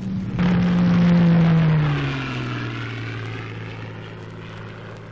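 Propeller aircraft flying past. The engine drone comes in suddenly about half a second in, its pitch falls as it goes by, and it fades away.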